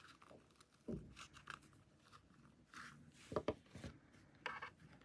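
Faint handling sounds: thick cotton macrame cord rustling and rubbing as braided and fringed pieces are pressed onto a slipper strap, with a soft thump about a second in and a few sharper knocks a little past the middle.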